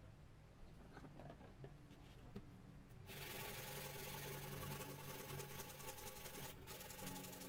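Faint abrasive work on a metal nameplate. Soft rubbing and scraping become a louder, denser rasping about three seconds in, with a steady hum beneath it.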